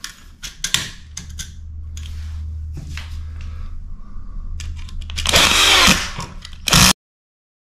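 Cordless drill-driver running at low speed as it tightens the brass terminal screws on an electrical outlet: a steady low motor whir for about four seconds, then a louder stretch about five seconds in with the pitch bending up and down. A short sharp burst follows, and then the sound cuts off abruptly.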